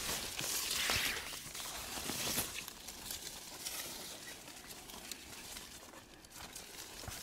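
Footsteps crunching and rustling, loudest in the first couple of seconds and then fading.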